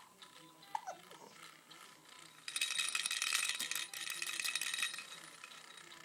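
Baby rattle toy shaken hard, a dense clatter of beads starting a couple of seconds in and lasting about two and a half seconds before it dies away.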